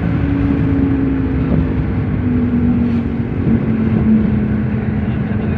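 Engine and road noise of a moving car heard from inside the cabin: a steady low rumble with a droning hum that falls a little in pitch a couple of seconds in.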